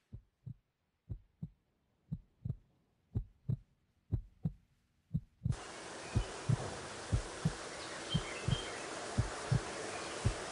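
Heartbeat sound effect: slow paired low thumps, about one beat a second. About halfway through, a steady hiss comes in beneath the beats.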